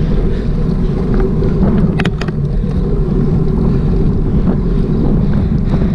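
Steady wind noise rumbling on the microphone while riding along a street, with a couple of sharp clicks about two seconds in.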